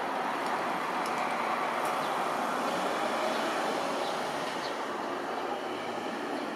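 Twin turbofan engines of an FDA Embraer regional jet climbing out after takeoff: a steady, even jet rush that swells slightly and then eases off a little near the end.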